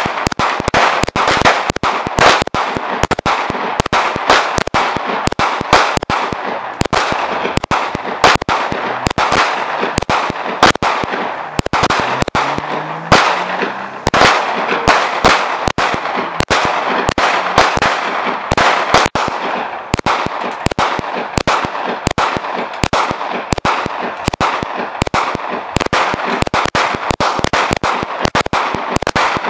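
Handgun fired rapidly and repeatedly, about three shots a second without a break, each shot a sharp crack.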